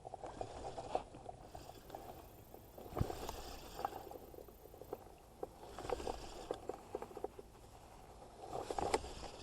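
Faint water sloshing with many small scattered clicks and knocks, the hiss swelling and easing a few times.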